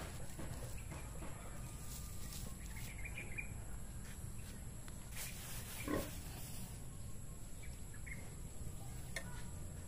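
Faint outdoor background with a steady low rumble and a few faint high chirps; about six seconds in, a short animal sound stands out.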